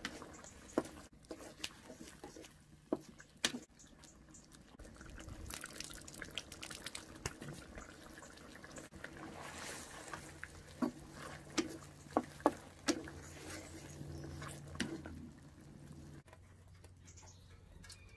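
Fish in escabeche sauce simmering in a steel wok, with a spatula scraping and knocking against the pan a dozen or so times. Near the end, sauce drips from a lifted fish into an enamel dish.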